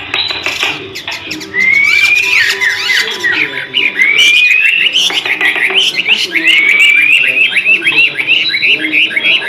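White-rumped shama singing a fast, vigorous song of rapid rising whistled sweeps and trills, getting louder about a second and a half in.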